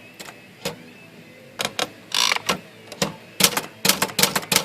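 Erika manual typewriter being typed on, typebars striking the platen: a few separate strokes, then a quicker run of strikes in the second half, with a short rasp about two seconds in. This is test typing to check whether the uppercase and lowercase characters line up after a shift motion adjustment.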